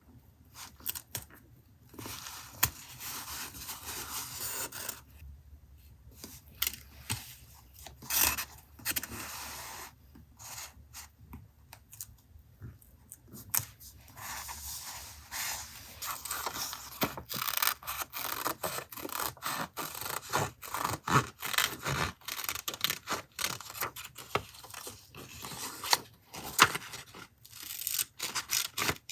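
Paper handled in journal collage work: rubbing, scraping and tearing sounds, with many short clicks and taps at irregular intervals.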